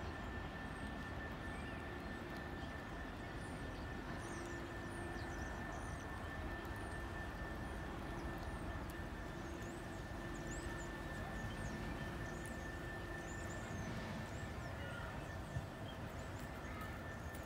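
Outdoor park ambience: a steady low rumble of distant city traffic, with small birds chirping in short, high, thin calls at intervals.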